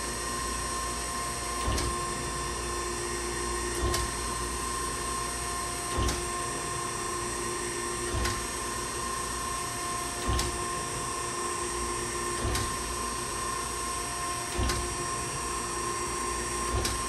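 Okamoto ACC-1632DX hydraulic surface grinder running in its automatic cycle: a steady hum and whine from the grinding-wheel spindle and hydraulics, with a short knock about every two seconds as the hydraulic table reverses at the end of each stroke.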